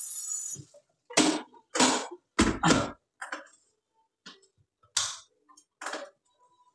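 Kitchen items being handled: about eight short knocks and clatters at irregular intervals.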